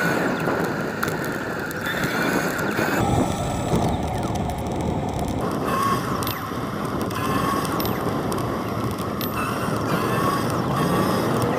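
A bicycle riding on a paved path: steady tyre and wind noise on the microphone, with light mechanical rattling and clicks from the bike.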